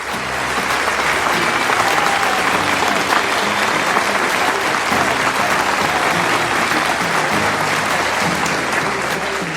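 Applause from a crowd, starting abruptly and running over background music with a steady instrumental line underneath.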